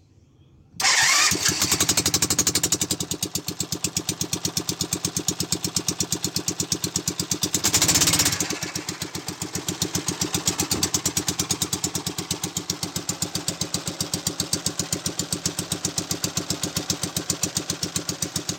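A small engine fitted with an electric starter starts about a second in, then runs with an even, rapid firing beat. It surges louder briefly around the middle before settling back.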